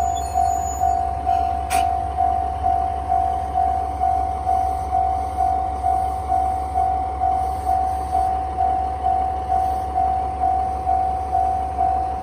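Japanese level-crossing warning bell sounding its electronic 'kan-kan' tone, about two strikes a second, each fading before the next: the signal that the crossing is closed for a train. A steady low rumble runs underneath, and a sharp click comes about two seconds in.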